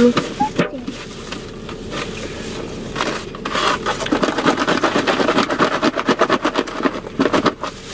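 A takeout salad with croutons being shaken in its closed plastic container to mix in the dressing: a rapid rattle against the plastic, densest from about three seconds in.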